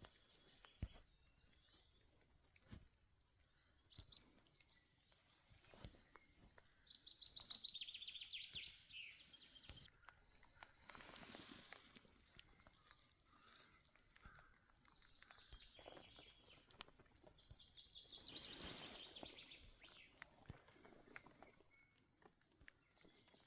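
Faint outdoor quiet with a small songbird singing: two rapid trilling song phrases, the first about seven seconds in and the second near the end, with a few scattered chirps between. Occasional soft clicks and a couple of brief rushing swells of noise.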